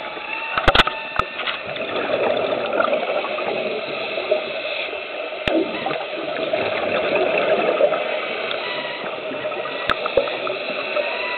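Underwater scuba sound through a camera housing: a steady rushing of air bubbles from a diver's regulator, swelling and easing, with a few sharp clicks about a second in, midway and near the end.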